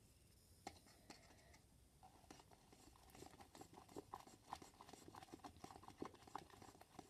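Sticky slime being stirred in a plastic cup: faint, rapid little wet clicks and crackles that start about two seconds in and keep going.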